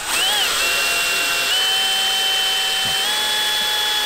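DeWalt XR cordless drill running a bit into a small metal tab, its motor whining with the pitch stepping up twice as the speed rises. The bit is blunt and barely cutting, which the driller calls "a little blunt."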